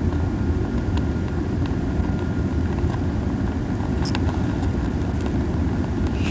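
Campfire of pine cones burning hot: a steady low rumble and buffeting of strong flame and wind, with a few soft crackles and pops, one about a second in and a pair around four seconds.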